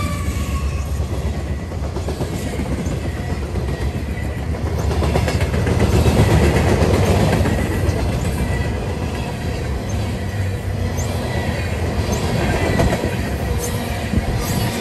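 Freight cars of a mixed freight train rolling past close by, steel wheels rumbling and clattering on the rails, with a few brief high wheel squeals near the end.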